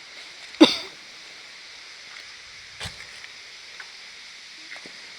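Steady outdoor background hiss, with a brief vocal sound about half a second in and a single soft thump near the middle.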